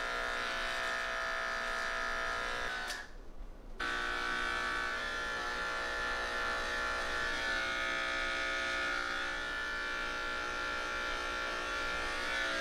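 Electric pet clippers buzzing steadily as they run through a longhaired cat's coat. The buzz drops out for about a second about three seconds in, then resumes.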